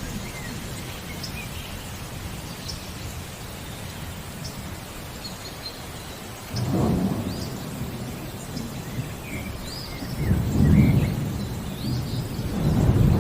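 Steady rain with birds chirping now and then. Thunder rumbles about six and a half seconds in, louder about ten seconds in, and builds again near the end.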